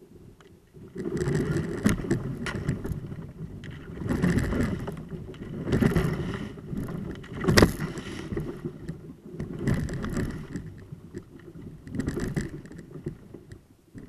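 Kayak hull and paddle breaking through thin skim ice: crunching, cracking surges about every two seconds, with one sharp crack about seven and a half seconds in.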